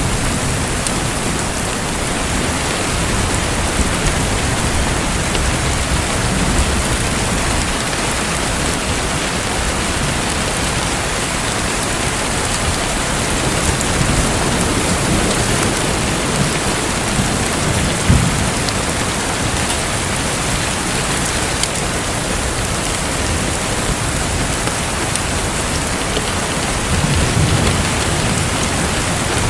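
Steady pattering, rain-like water noise, with a few faint clicks and brief low rumbles about halfway through and near the end.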